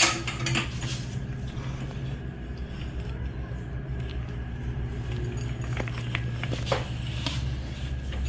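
Bench vise being cranked tight with a pipe over its handle to press a needle bearing into a rocker arm: a sharp metal clink at the start, then a few lighter metal clicks and taps later on, over a steady low hum.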